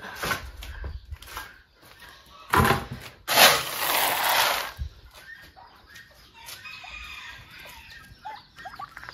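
A plastic scoop digging into a bucket of dried corn kernels, with a short rattle of grain about two and a half seconds in and a longer, louder rattle just after. In the second half, poultry give faint short calls.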